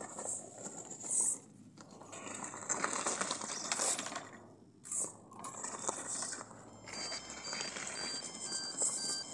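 Six-wheeled Mars-rover-style robot driving in bursts against a pile of firewood logs: electric drive motors running and wheels grinding and crackling on gravel and bark as it struggles to climb, with two short pauses between pushes.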